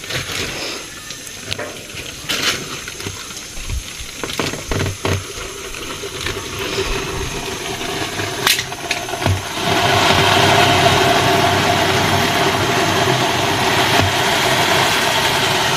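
Handling noise from a feed sack, with scattered knocks and rustles. About halfway through, dry cracked corn starts pouring steadily from the sack into a plastic container, making a dense, even rush of kernels.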